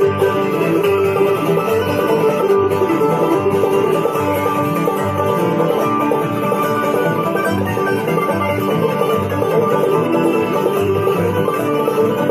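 Instrumental break by a bluegrass string band: clawhammer-style banjo over guitar, with a steady, evenly pulsing bass line underneath.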